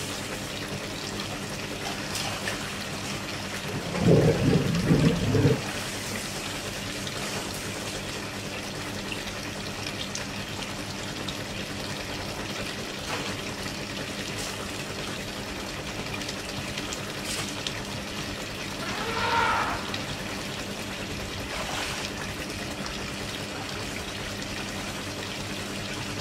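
Steady trickle of water from a wall spout pouring into a small swimming pool. A loud, low, pulsing burst comes about four seconds in, and a short wavering sound about two-thirds of the way through.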